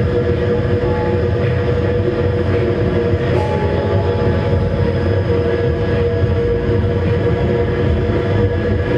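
Live experimental drone-noise music: a loud, dense rumbling wash with a steady held tone over it, unbroken throughout.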